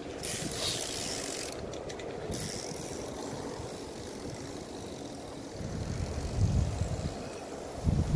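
Trials bicycle rolling past with its freewheel hub clicking and hissing for the first couple of seconds. Low rumbling follows, once around six seconds in and louder at the very end.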